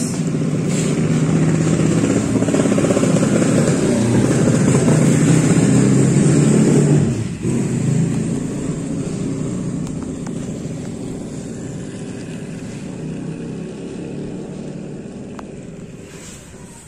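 Battery-powered toy train running on a plastic track: its small electric motor and gears whir while the plastic wheels rattle over the rails. The sound swells to its loudest about seven seconds in, then gradually fades.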